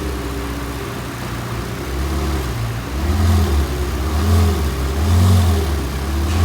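Ferrari 488 GTB twin-turbo V8 running, with three short throttle blips about a second apart from about three seconds in.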